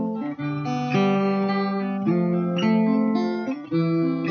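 Acoustic guitar strummed, with a harmonica on a neck rack playing the melody in held notes that change about once a second.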